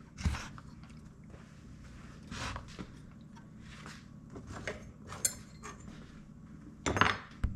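Small clicks and knocks of hand tools and metal parts being handled while a felling dog is bolted onto a chainsaw, with a louder knock near the end.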